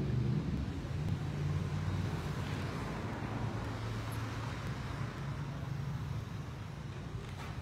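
Steady low rumble and faint hiss of outdoor background noise, with no distinct event.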